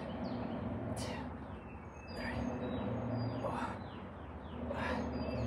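Effortful breaths out in a steady rhythm, about one every second and a half, in time with bench-dip reps. Small birds chirp in the background over a low, steady rumble.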